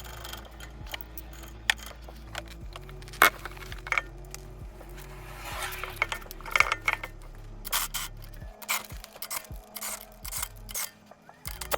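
Scattered sharp metallic clicks and scrapes of rear brake pads and caliper hardware being handled, over faint background music.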